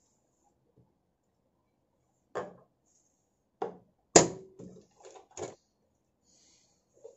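Sharp knocks and clicks at a domestic sewing machine as fabric is set under the presser foot, about six of them in a few seconds. The loudest, just after four seconds in, rings briefly like metal.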